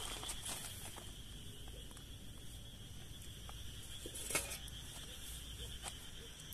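Crickets chirping steadily, with a sharp metal clink about four seconds in as the aluminium pot lid is handled, and a few lighter clicks.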